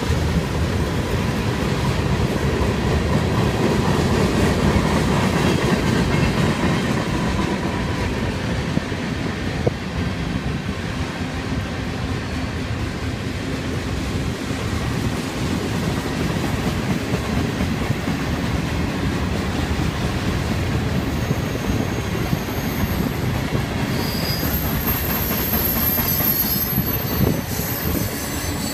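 Freight cars of a mixed freight train rolling past: a steady rumble and clatter of steel wheels on rail. Brief high-pitched wheel squeals come in the last several seconds.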